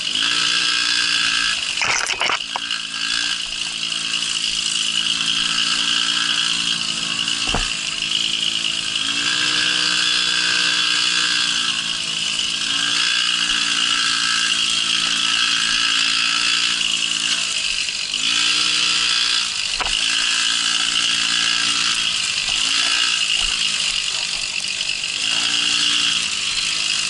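Babetta moped's 50 cc two-stroke single-cylinder engine running under way, its pitch dropping and rising again and again with the throttle. A few sharp knocks cut through it, about two seconds in, near eight seconds and around twenty seconds.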